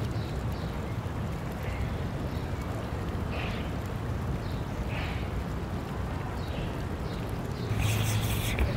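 Steady outdoor ambience of a small stream running, under a low hum, with a few faint short high chirps. A louder burst of noise comes near the end.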